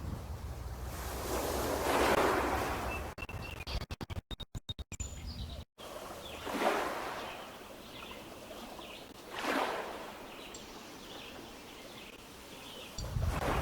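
Small lake waves lapping and splashing against shoreline stones, swelling three times, about two, six and a half and nine and a half seconds in. Faint bird chirps sound in the background. The audio cuts out briefly several times near the middle.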